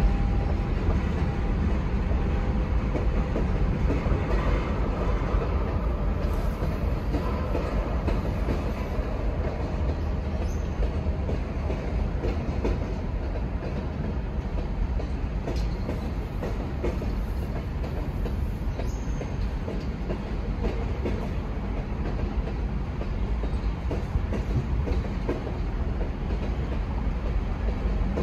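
Freight train of tank cars rolling steadily past a grade crossing: a constant low rumble of steel wheels on rail with scattered clacks over the joints.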